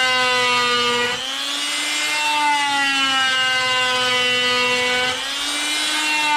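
WorkPro 3.0 A corded oscillating multi-tool running with a steady high-pitched motor hum. The pitch sags slightly about a second in and again about five seconds in, then climbs back.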